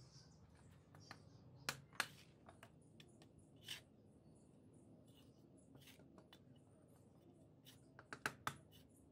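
Quiet bricklaying sounds: a few sharp knocks and clicks of brick and trowel as bricks are set in mortar, two close together about two seconds in and a quick run of three or four near the end.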